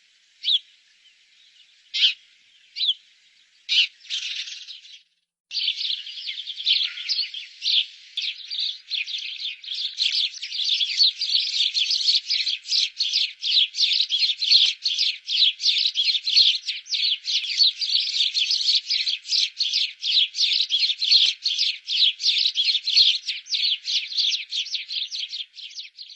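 Sparrows chirping: a few separate chirps at first, then, after a brief break about five seconds in, a dense, unbroken run of rapid chirps.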